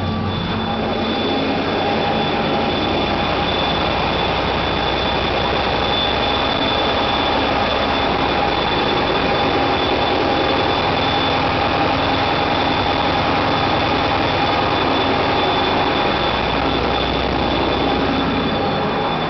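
A 2M62 diesel locomotive under way, heard from inside its cab: the steady running noise of the engine and wheels on the rails, with a thin, high, steady whine through it.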